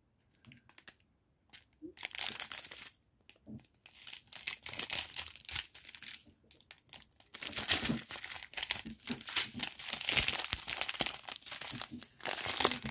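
Thin clear plastic bags of diamond painting drills crinkling as they are handled, in scattered bursts at first and near-continuous from about halfway through.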